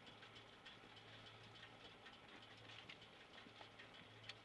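Near silence: faint outdoor background with a low hum that comes and goes and a few faint ticks.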